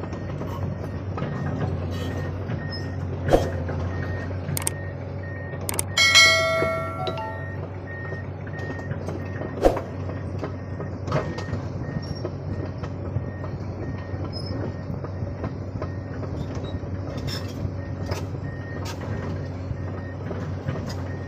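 Heavy diesel trucks running at a worksite, a steady low engine hum throughout. About six seconds in there is a brief horn-like tone, and a few sharp knocks come through at other moments.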